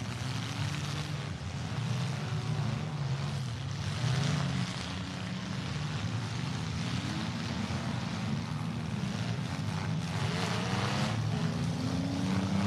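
Engines of many demolition derby compact cars running and revving together, their pitch rising and falling, with a couple of crashes as cars hit each other.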